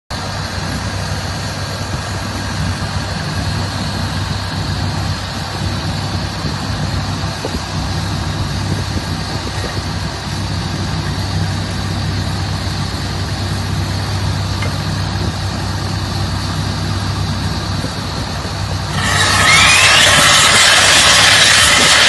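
Steady low hum of the crawler drill rig's and portable air compressor's engines idling. About 19 seconds in, a loud rush of compressed air cuts in suddenly as the drill starts running, blowing air and dust out of the hole.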